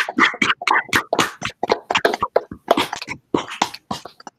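Scattered applause over a video call: rapid, unsynchronised hand claps from a few participants, picked up by their own microphones.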